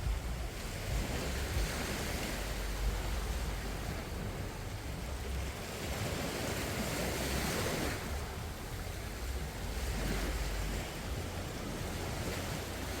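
Small waves washing on the shore, the surf rising and falling, over a low rumble of wind on the microphone.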